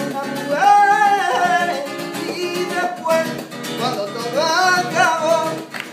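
Acoustic guitar strummed and plucked, with a voice singing long, wavering lines over it.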